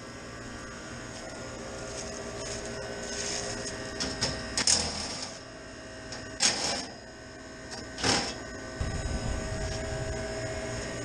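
Rooftop HVAC unit running with a steady hum, its fans moving air. Three short, noisy handling sounds about four and a half, six and a half and eight seconds in.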